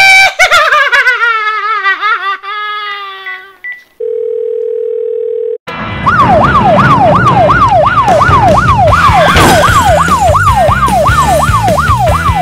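A long wavering cry falling in pitch, then a steady beep of about a second and a half. A police siren then starts about six seconds in, sweeping rapidly up and down about twice a second, over background music with a beat.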